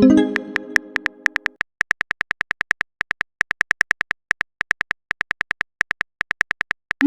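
Chat-app sound effects: a short electronic chord-like tone over clicks, then a quick run of short electronic keyboard-tap blips, about six a second with a few short pauses, as a message is typed out.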